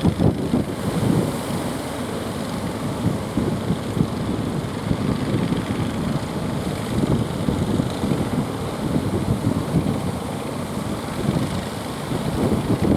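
Boat engine running, with wind buffeting the microphone in irregular gusts.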